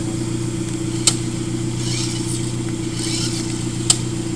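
A motor vehicle's engine running with a steady, even hum, punctuated by two sharp clicks, about a second in and again near the end.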